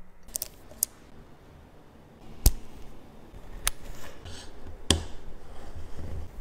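Sharp metallic clicks and taps of small watchmaker's tools against a steel watch case and bracelet, as the bracelet is detached and the case back is worked open. About half a dozen separate clicks, the loudest about two and a half seconds in.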